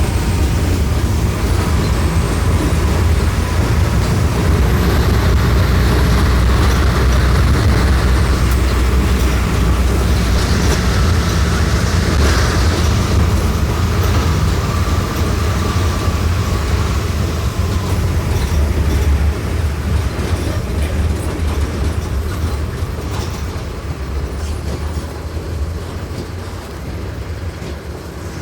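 Mercedes-Benz OF-1418 bus's OM-904LA turbodiesel engine running with a steady low drone. A brief hiss comes about ten seconds in, and the engine sound gets quieter over the last third.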